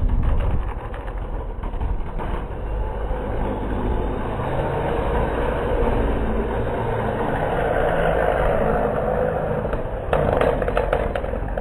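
Water truck driving slowly and wetting the rallycross track: a steady low engine rumble under a continuous rush of noise.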